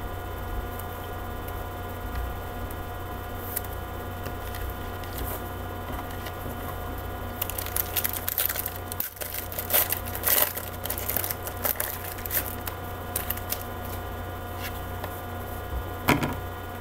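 Trading cards being handled and shuffled through by hand, giving a cluster of small clicks and crackles about halfway through, over a steady electrical hum.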